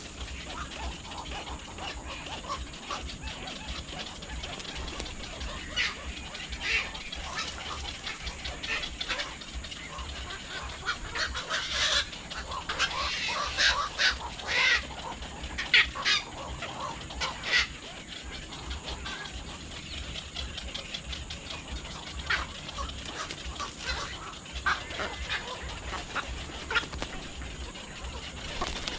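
Birds calling: many short, sharp calls and clicks, busiest in the middle of the stretch, over a steady low rumble.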